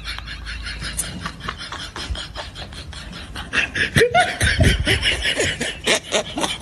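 Laughter: a rapid run of short bursts that grows louder a little past halfway through.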